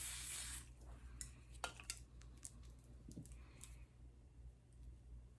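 Lace spray hissing out in a burst that stops about half a second in, followed by a few faint, sharp clicks and taps over the next few seconds.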